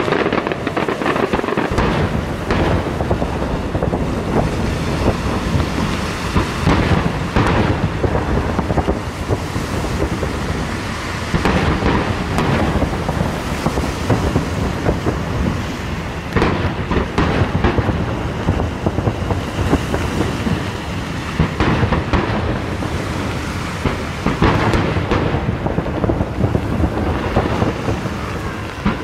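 Aerial firework shells bursting in a continuous barrage, many booms overlapping into a steady rumble with louder clusters of bangs every few seconds.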